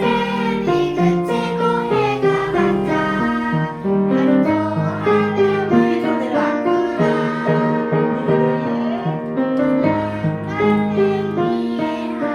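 A group of third-grade children singing a Korean children's song (동요) softly over piano accompaniment; their voices are weak against the piano.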